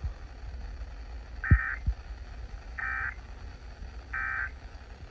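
Emergency Alert System end-of-message (EOM) header: three short bursts of two-tone digital data warble, evenly spaced about 1.3 s apart, signalling the end of the alert. Two low thumps come about a second and a half in, the first the loudest sound, over a low hum.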